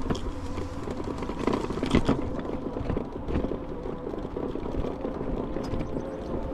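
Fat-tyre e-bike (Aniioki A8 Pro Max) riding over a bumpy grassy dirt trail: tyre and frame rumble with scattered knocks and rattles over bumps, the loudest about two seconds in, under a faint steady motor whine.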